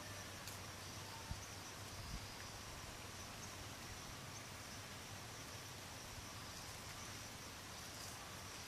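Outdoor ambience: a steady high-pitched insect drone over a low background hiss, with a couple of faint knocks about one and two seconds in.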